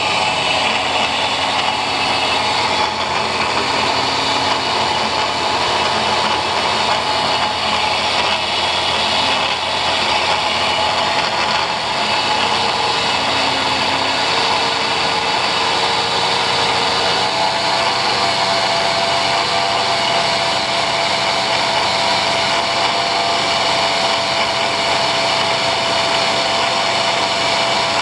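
Angle grinder mounted as a cut-off saw, running steadily at full speed through a test cut, its motor holding a high pitch without pause.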